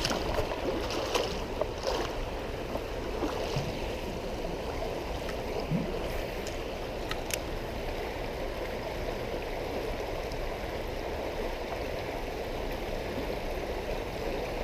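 A small creek running over its bed: a steady rush of flowing water, with a few faint brief ticks near the start and about halfway through.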